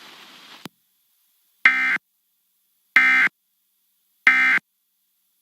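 Emergency Alert System end-of-message code: three short, identical electronic data bursts about 1.3 seconds apart, the digital signal that closes an EAS test. A faint hiss cuts off with a click about half a second before the first burst.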